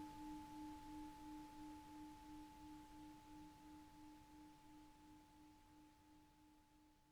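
Tibetan singing bowl ringing out after a strike: a faint, low tone wavering about three times a second, with a fainter higher overtone, slowly fading away to nothing by the end.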